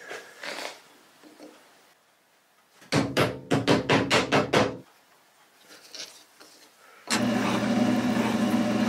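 A wooden mallet knocks on a plywood blank, about nine quick blows in two seconds. Then, about seven seconds in, a drill press starts and runs steadily with a low hum, drilling a small hole into the plywood disc.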